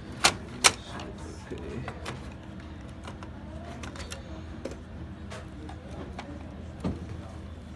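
Two sharp clicks near the start, then scattered lighter clicks and knocks of metal and plastic desktop-computer parts being handled as a CPU heatsink and its plastic fan shroud are fitted into the case.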